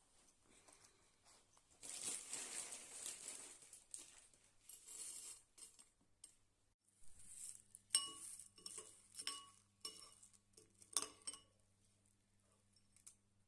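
Dishes and glassware clinking and clattering, with a short run of sharp ringing clinks about two-thirds of the way in. Before that comes some rustling, and a faint steady hum starts about halfway.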